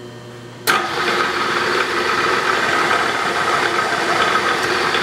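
Spot drill in a Bridgeport milling machine cutting a chamfer into a metal part as the quill is fed down against its depth stop. The cut starts suddenly about two-thirds of a second in and runs steadily.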